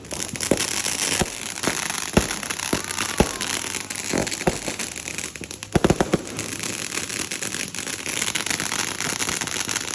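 Fireworks going off: a dense, steady crackling with sharp bangs about once a second over the first few seconds, and a quick cluster of bangs about six seconds in.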